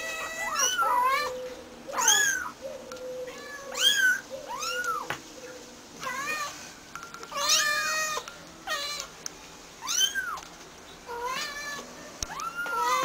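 Kittens meowing over and over: short, high, arching mews about once a second, sometimes two at once.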